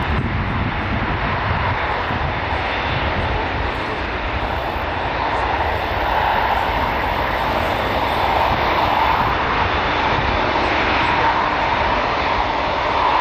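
Airbus A380's four jet engines running as the airliner taxis on the ground after landing: a steady jet rush over a low rumble, growing slightly louder about halfway through as it approaches.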